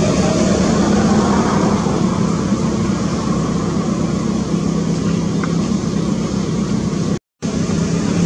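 A steady, loud mechanical hum, like an engine running, with a low drone throughout. It drops out to silence for a moment near the end.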